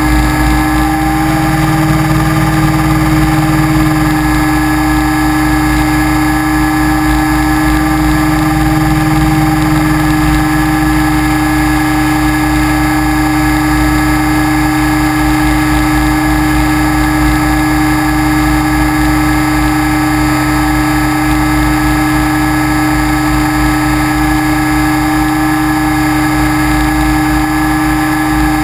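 Motor and propeller of an FPV model aircraft heard from its onboard camera, running at a steady pitch, with a flickering wind rumble underneath.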